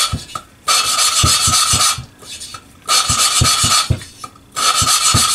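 Kohler KT17 exhaust valve being hand-lapped into its seat with lapping compound, the valve spun back and forth by a suction-cup stick between the palms with little pressure: a gritty rasping grind in bursts about a second long, roughly every two seconds. It is the sound of the valve face and seat being ground together so that the valve will seat.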